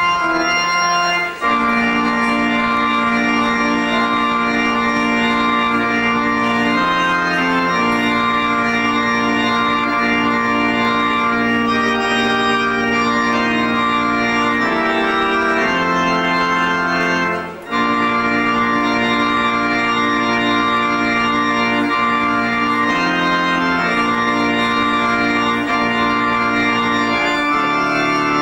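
Organ playing slow, held chords as a wedding processional, the chords changing every second or two, with short breaks about a second in and again about two-thirds of the way through.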